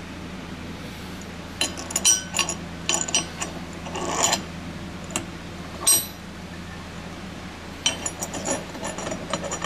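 Metal parts of a cast rifle rest being handled and adjusted: irregular clusters of clicks and clinks, in two spells with a short pause between, over a steady low hum.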